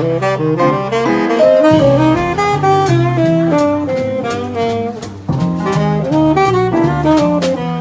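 Small jazz group playing, a saxophone carrying the melody over bass and drums.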